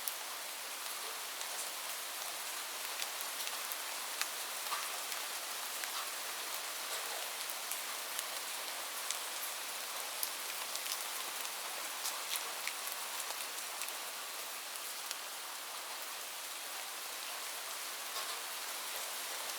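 Light rain falling steadily, an even patter with scattered individual drops ticking on a surface.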